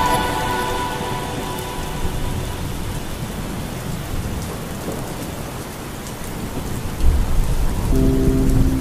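Rain hitting a moving car's windshield and body, a steady hiss of drops and road noise. A song's bass comes back in about seven seconds in, with its melody a second later.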